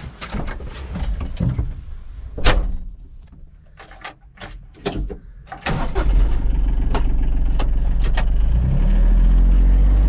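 Knocks and clatter of someone getting into a John Deere Gator XUV 855D utility vehicle, then its three-cylinder diesel engine starting on the key about six seconds in and running steadily, revving up near the end.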